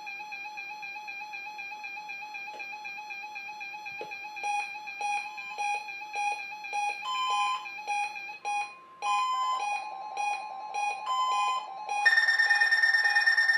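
Several weather radios sounding their alarm beeps at once, set off by a Required Weekly Test. One radio beeps rapidly and steadily throughout. A second joins about four seconds in with beeps about twice a second, and a louder, higher-pitched alarm starts near the end.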